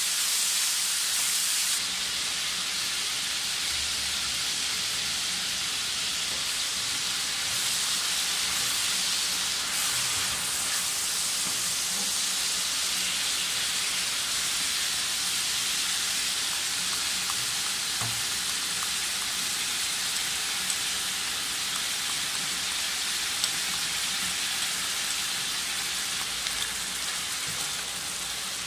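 Food frying in hot oil in a wok: a steady sizzle, a little louder for the first two seconds, with a few faint clicks.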